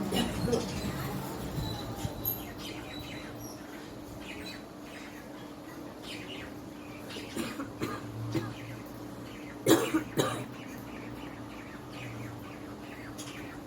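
A woman coughing: scattered short coughs, then two loud coughs about half a second apart roughly ten seconds in. It is a genuine cough from illness, not put on.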